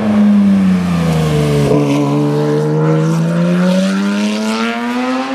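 Porsche 911 GT3 (992) 4.0-litre flat-six with a GMG WC-Evo aftermarket exhaust driving past, loud, its engine note dropping in pitch for about two seconds and then climbing steadily as the car pulls away.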